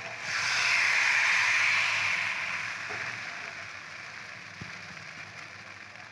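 Appam batter sizzling in a hot, lightly oiled kadai: the sizzle swells about half a second in as the batter spreads over the hot pan, then slowly dies down as the batter sets and bubbles.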